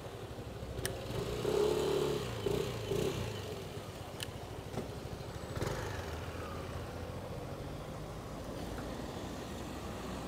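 Street traffic at a junction: a motor scooter pulls away from a stop, its engine revving up and dropping back about one to three seconds in, over the steady noise of passing cars.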